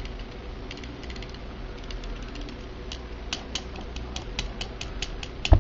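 Light, quick taps of a carbon fishing rod section on the work table, to settle glue down inside the blank; sparse at first, then about four or five clicks a second, with one heavier knock near the end.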